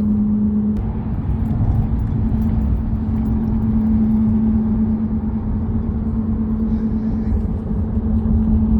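A motor vehicle being driven: a steady low rumble of engine and road noise with a constant drone.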